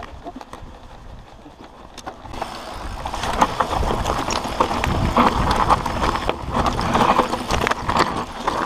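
Mountain bike riding down a rocky, loose-slate trail: tyres crunching and the bike rattling and clattering over stones, with wind rumble on the camera microphone. It is quieter at first, then the clatter grows dense and loud about two and a half seconds in as the trail gets rougher.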